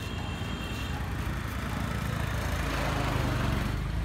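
Street traffic noise with a motor vehicle's engine running, growing louder from about two seconds in.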